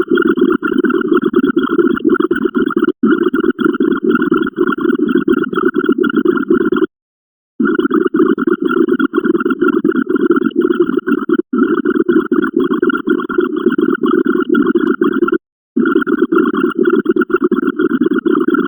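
Computer-generated sound effects for a binary count, fired so fast that they run together into a loud, fluttering buzz. Brief silences break it about every four seconds.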